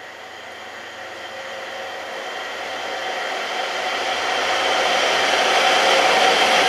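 GB Railfreight Class 66 diesel-electric locomotive (EMD two-stroke V12) approaching at the head of a freight train, its engine and wheel-on-rail running noise growing steadily louder as it draws near, with a few steady tones held through the rumble.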